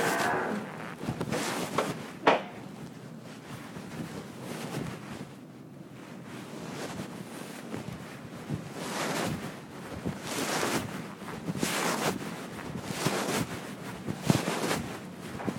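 Rustling and rubbing of fabric against a covered camera microphone, swelling and fading every second or so, with one sharp knock about two seconds in.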